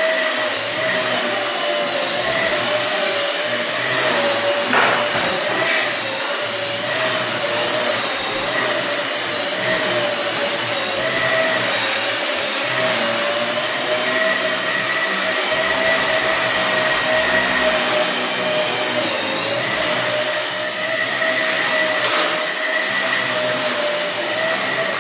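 Blade Nano CP X micro RC helicopter in flight: its electric motors and spinning rotors give a steady high whine whose pitch wobbles slightly as the throttle and pitch are worked.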